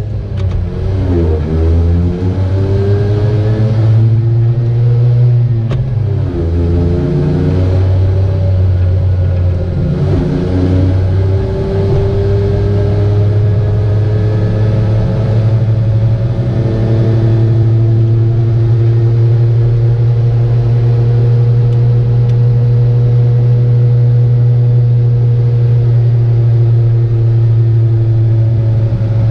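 Piaggio Ape 50's small two-stroke single-cylinder engine running, its revs rising and falling for the first dozen seconds or so and then holding steady; the owner finds the engine sound weird.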